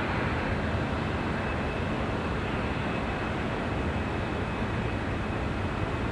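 Diesel freight locomotive idling as the train stands waiting at a signal: a steady low rumble, with a faint steady high whine over it.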